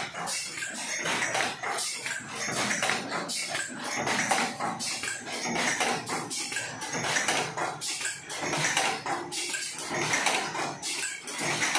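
Several paper cupcake liner making machines running at once, a fast, uneven clatter of repeated mechanical strikes as they press out paper cups.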